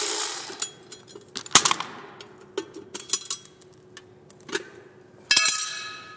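Scattered light metallic clicks and clinks of hand tools and small parts while motorcycle battery terminal cables are fitted, with a short rustling noise at the start and again near the end.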